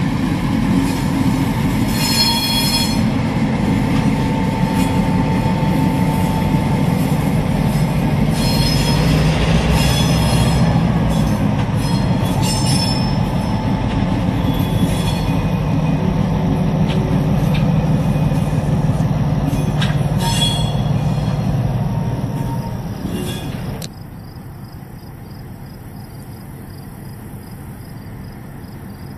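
CN GMD1 diesel locomotive and a second diesel running light at low speed: steady engine rumble with several brief high-pitched wheel squeals from the rails. About 24 s in the sound drops to a much quieter distant engine with insects chirping.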